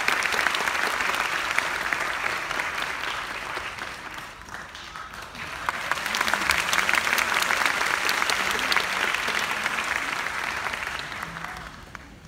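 Audience applauding: the clapping eases off about four seconds in, swells again a second or so later, then dies away near the end.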